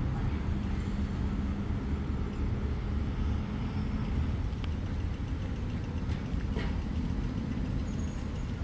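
Steady low rumble of city road traffic, with a steady engine hum that fades out about three seconds in.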